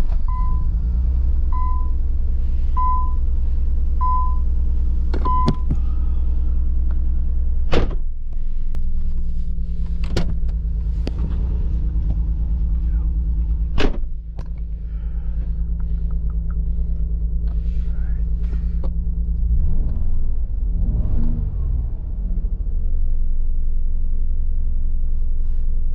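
Nissan 300ZX's V6 engine idling steadily just after starting, on its new spark plugs, with the slight stumble the owner is still chasing. A dashboard chime beeps five times, about once a second, in the first few seconds, and a few sharp clicks come later.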